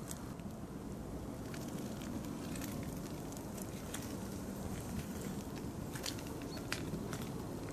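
Outdoor background noise: a steady low rumble with scattered light ticks and crackles, more of them in the second half.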